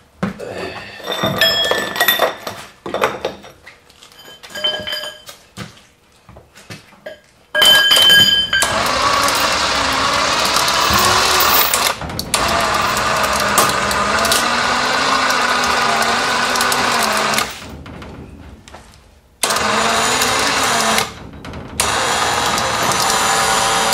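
Electric winch pulling a heavy CNC mill on rollers by its chain. A few metallic clinks and knocks come first. Then, from about eight seconds in, the winch motor runs loud and steady under load with a wavering whine, stops for about two seconds and then for a moment, and starts again each time.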